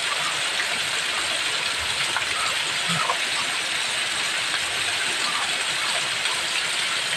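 Heavy rain falling steadily, with runoff water gushing.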